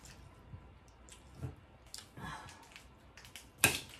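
Eating sounds at a table: a knife and fork clicking and scraping on a plate as chicken wings are cut, with soft wet mouth noises, and one sharp click, the loudest sound, near the end.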